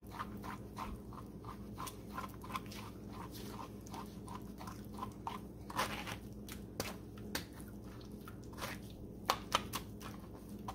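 A spoon scraping and pressing blended red bean purée through a metal mesh strainer, a quick even run of rasping strokes about three a second, then slower with a few sharper knocks in the second half.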